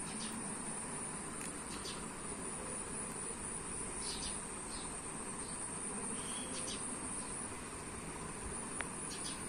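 Steady high-pitched drone of insects, with several short high chirps scattered through it.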